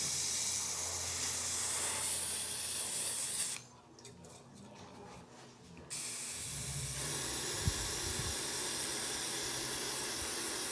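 Aerosol hairspray can spraying in two long bursts of hiss. The first stops about three and a half seconds in, and the second starts about two seconds later.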